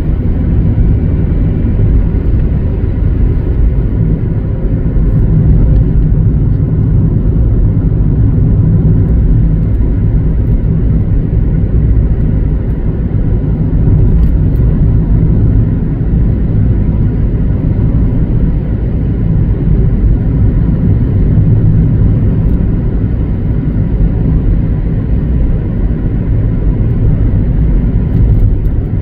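Car driving along at a steady speed: a loud, steady low rumble of road and engine noise.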